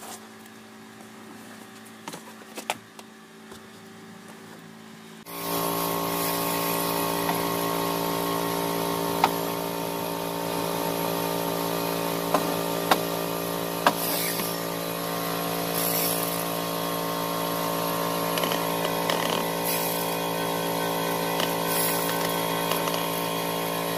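An electric power tool's motor starts suddenly about five seconds in and runs steadily, with a few sharp clicks over it.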